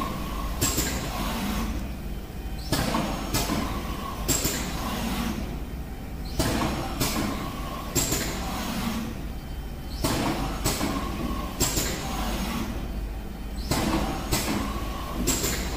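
Semi-automatic flat screen printing machine cycling: short sharp air hisses from the print head's pneumatic cylinders about every two seconds, as the squeegee and flood bar switch at each end of the stroke. Between them the drive runs the print carriage across, over a steady low hum.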